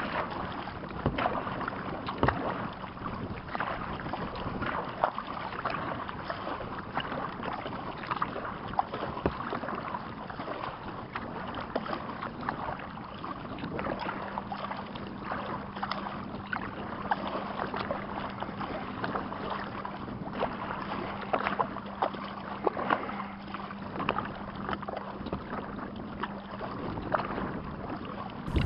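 Kayak being paddled: water splashing and dripping with irregular paddle strokes against the hull.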